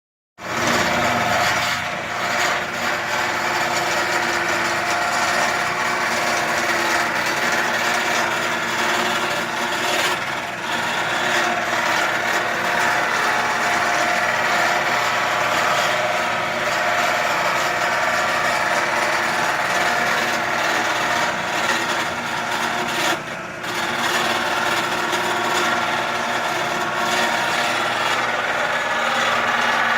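Wood lathe running with a steady motor hum while a turning tool scrapes against the spinning wood, with a brief dip in the cutting noise about three-quarters of the way through.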